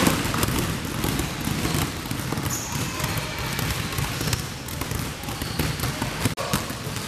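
Many basketballs being dribbled at once on a wooden gym floor: a dense patter of overlapping bounces that never lets up.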